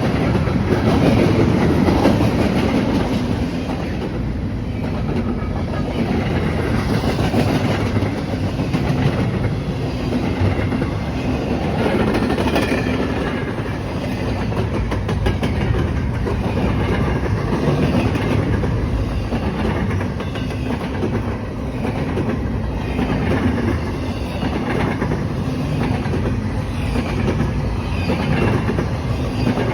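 A train rolling steadily past, its wheels clattering over the rail joints.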